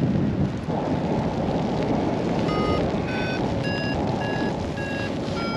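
Steady wind rush on the microphone. From about two and a half seconds in, a paragliding variometer gives short climb beeps a little under two a second, signalling that the glider is still going up in lift.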